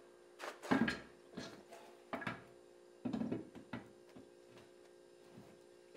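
A series of short knocks and bumps as a large spare tire is lifted and set onto a Smittybilt XRC steel tailgate tire carrier, the loudest about a second in, over a faint steady hum.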